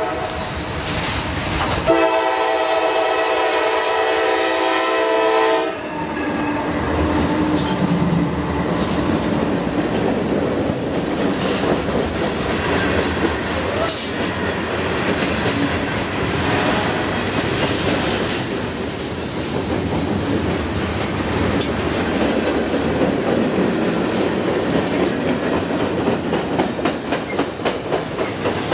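CSX freight train led by GE C40-8 and C40-8W diesel locomotives: a horn blast of about four seconds starting a couple of seconds in, then the locomotives pass with their diesel engines running. A long string of freight cars follows, rolling by with the steady rumble and clickety-clack of wheels over rail joints.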